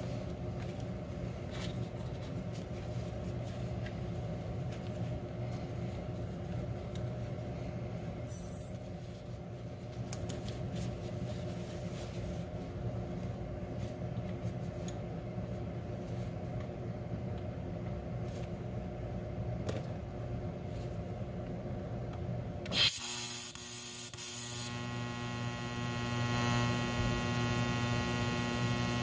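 Electrical hum of a TIG welder during welding. About 23 seconds in comes a sudden loud hiss lasting about two seconds, then a louder, steady buzzing hum with many overtones, as the arc runs.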